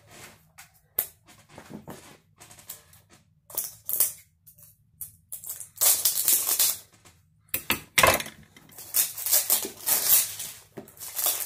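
Cellophane wrapping on a tattoo machine's box crinkling and crackling as it is handled and pulled off. The crackles are sparse at first and get denser and louder about halfway through.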